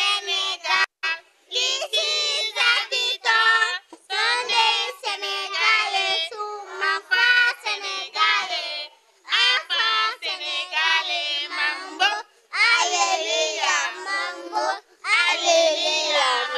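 Small children singing in high voices, phrase by phrase, with short breaks between the phrases.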